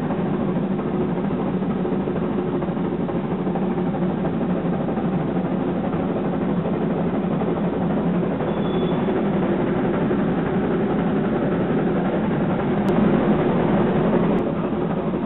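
Steady running noise of a steam-hauled passenger train heard from an open passenger car: a constant rumble of wheels on rail and the working train, a little louder near the end.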